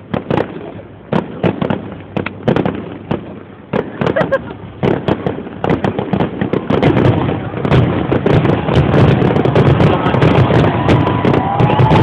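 Fireworks display: separate sharp bangs of shells bursting a few times a second, then, about halfway through, the bursts come so fast they merge into a continuous, louder barrage.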